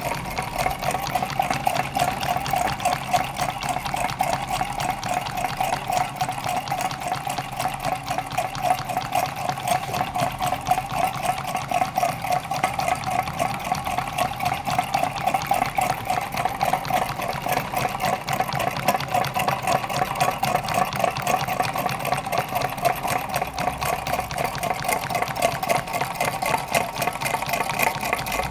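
Homemade tin-can Stirling engines running on tealight candles: a fast, steady clatter of many quick, even strokes.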